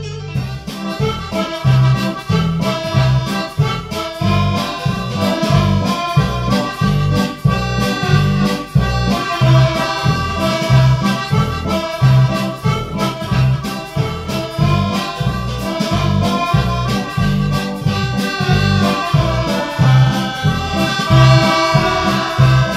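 Instrumental background music with a steady bass beat.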